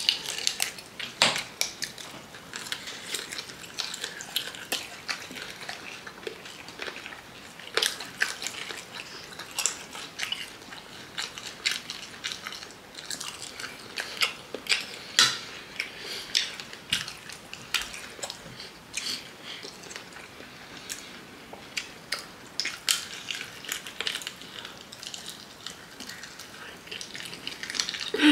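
Two people biting and chewing chicken feet and fries: a steady run of short eating clicks.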